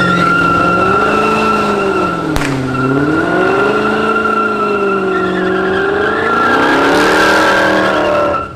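Dodge Charger doing donuts: the engine revs swing up and down while the spinning tyres squeal in a steady high tone. A single sharp crack comes a little over two seconds in.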